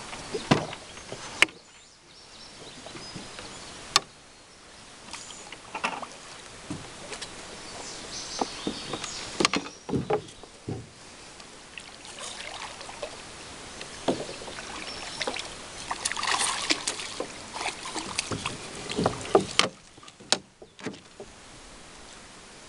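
A small boat being paddled through still water: irregular paddle splashes and sharp knocks against the hull.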